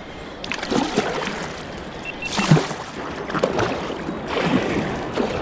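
Water splashing and sloshing around a fishing kayak in surges roughly once a second, with three short faint beeps about two seconds in.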